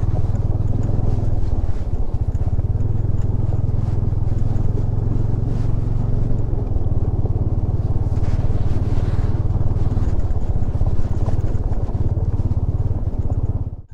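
Bajaj Dominar 400 single-cylinder engine running steadily while under way, a loud low rumble. It drops out abruptly for a moment near the end.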